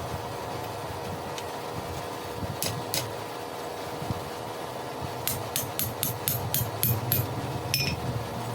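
Blacksmith's hammer striking hot wrought iron on an anvil, with a ringing note on each blow: two blows, a pause, then a quick run of about eight at roughly four a second and one last blow near the end. A steady hum runs underneath.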